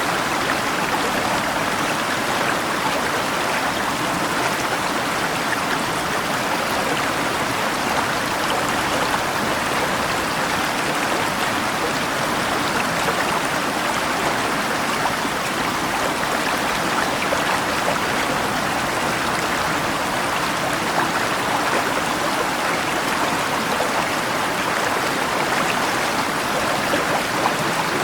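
Steady rushing of a flowing river, with rain falling, even and unbroken, with no thunder.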